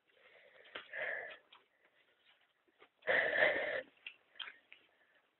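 A person breathing hard: two loud, raspy exhales about two seconds apart, the second the louder, with faint scattered ticks between them.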